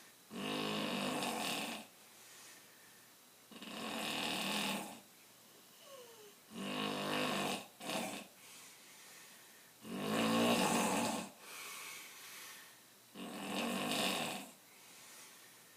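A man snoring: five loud snores about three seconds apart, each lasting a second or so, with quieter breathing between them.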